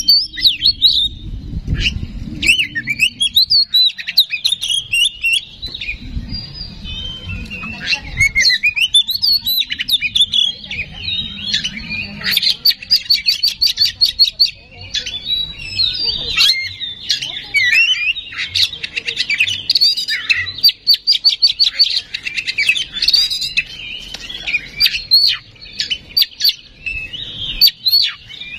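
Oriental magpie-robin singing a long, varied song of whistled phrases, chattering and fast trills, with runs of rapidly repeated notes. This is the loud 'gacor' territorial song used as a lure to rouse other magpie-robins.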